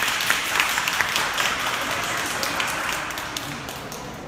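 Audience applauding, a dense patter of many hands clapping that dies away toward the end.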